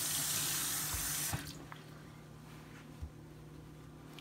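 Kitchen faucet running into a stainless steel sink while a mushroom is rinsed by hand under the stream. The water stops abruptly just over a second in, followed by a few faint knocks.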